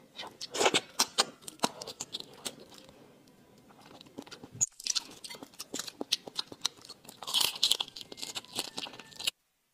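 Close-up crunching, crackling and wet chewing as raw marinated mantis shrimp are pulled from their shells and bitten, in clusters of sharp crackles with a quieter stretch in the middle. The sound cuts off suddenly near the end.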